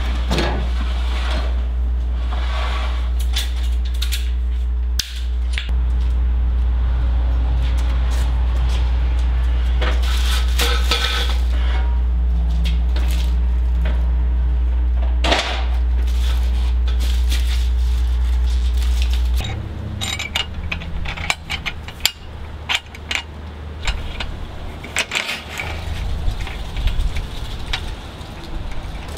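Aluminum mast tubing being handled and shifted on its steel cradle: scattered metallic clinks and knocks over a steady low hum, which changes about two-thirds of the way through.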